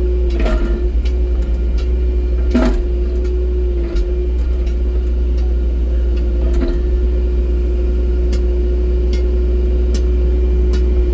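Excavator engine running at a steady hum, heard from inside the cab, with a few short knocks and clunks from the machine at work.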